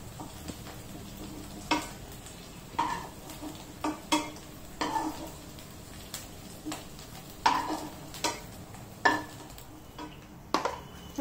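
Metal slotted spoon scraping through fried potatoes in a non-stick kadhai and knocking against the pan and a glass bowl, about once a second and unevenly, while the hot potatoes sizzle faintly.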